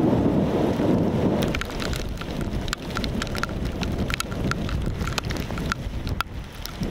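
Downburst thunderstorm: wind-driven raindrops strike window glass as sharp, irregular ticks over a steady rain hiss. A low rush of wind is loudest at first and drops away about a second and a half in.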